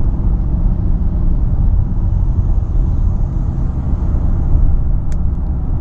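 Steady low humming and road rumble inside the cabin of a 2012 Ford Fusion SEL driving at speed. The hum is one the driver cannot place front or rear, with new, balanced tires and good alignment ruled out. A brief click sounds about five seconds in.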